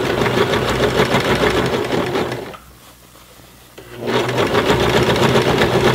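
Baby Lock BL9 mechanical home sewing machine stitching through a thick denim jeans hem at the side seam, a fast, even run of stitches. It stops for about a second midway, then starts stitching again.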